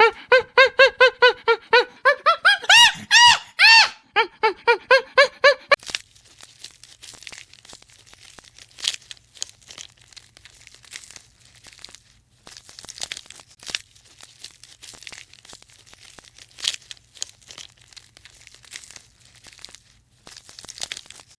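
A farm animal giving a rapid run of short pitched calls, several a second, some sliding up in pitch. After about six seconds the calls stop and faint crackling and rustling follow.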